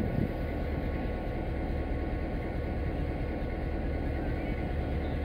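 Railway turntable rotating with an electric locomotive aboard: a steady low mechanical hum and rumble with a faint steady whine above it.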